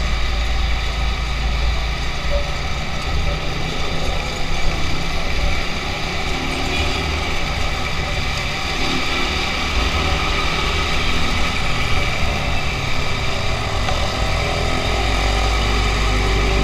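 Motorcycle engine running steadily as it rides in slow city traffic, with the engines of trucks alongside and a low rumble throughout.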